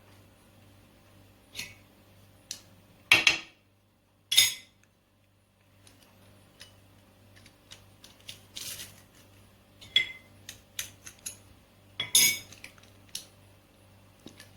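Kitchen utensils clinking and tapping against dishes during food preparation: scattered light clicks, with a few louder clatters.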